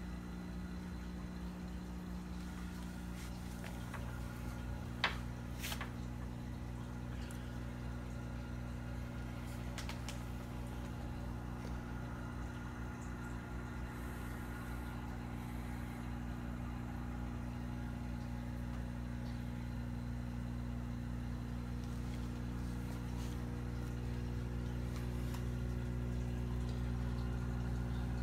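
Steady low electrical hum of aquarium equipment, growing slightly louder toward the end, with a sharp click about five seconds in.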